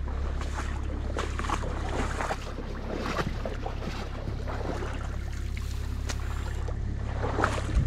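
Excavator engine running with a steady low drone, over water trickling and splashing as the stream drains through the broken-out beaver dam.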